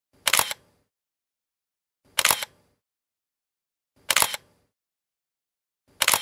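Camera shutter clicks, four in all, about two seconds apart, each a quick double snap over otherwise dead silence.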